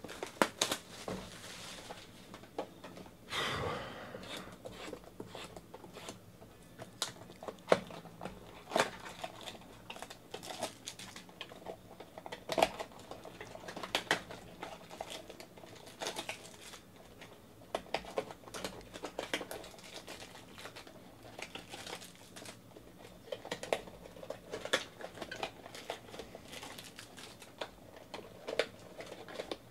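Plastic and paper wrapping on a trading-card box crinkling and tearing as it is opened by hand: scattered sharp crackles, with a longer, louder tearing stretch about three seconds in.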